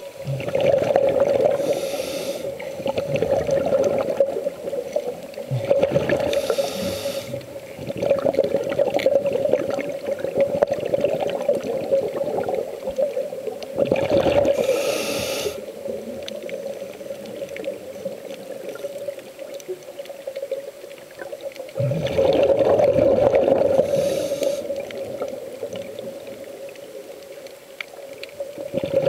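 Muffled underwater sound picked up by a camera held underwater: a steady hum, with a hissing, rushing burst of breath and bubbles from the swimmer every several seconds, about four times.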